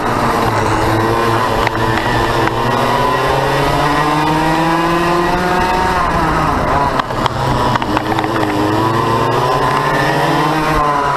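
A KA4 racing kart's 100cc two-stroke engine heard onboard under race load. Its pitch climbs steadily for several seconds as it accelerates, drops about six seconds in as it slows for a corner, then climbs again, with another short dip near the end.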